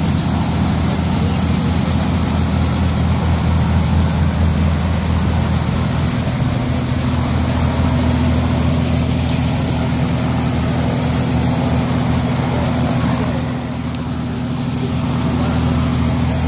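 A tour helicopter idling on its pad: a steady, loud engine-and-rotor drone with a low hum, and a brief easing around two-thirds of the way through. People's voices are faintly mixed in.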